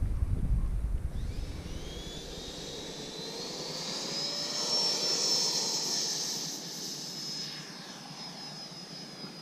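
Freewing L-39 Albatros's 80mm electric ducted fan spooling up for takeoff: a high whine that rises in pitch from about a second in, then holds steady and grows fainter as the jet rolls away on its takeoff run.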